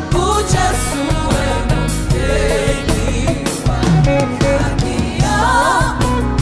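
Gospel choir singing live with a band: several voices carry a wavering melody over drum kit and bass with a steady beat.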